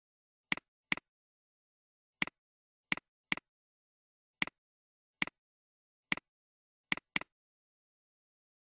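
Computer mouse clicks, about ten short sharp ones at irregular intervals, some in quick pairs, each a tick followed by a softer release tick, with dead silence between.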